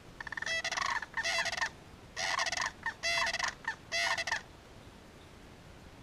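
Sandhill cranes calling: a series of loud, rolling, rattling bugle calls in about five bursts over some four seconds, then they stop.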